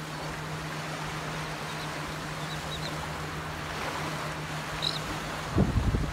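Small surf washing on the beach as a steady hiss, with a faint low hum underneath and a few short high calls from royal terns. Wind buffets the microphone briefly near the end.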